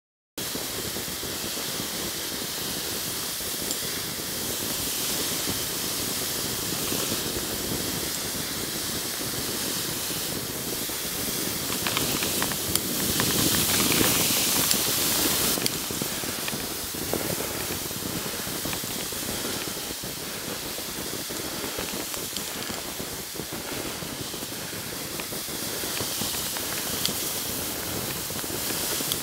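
Skis running over snow: a steady hiss that grows louder and brighter for about three seconds partway through.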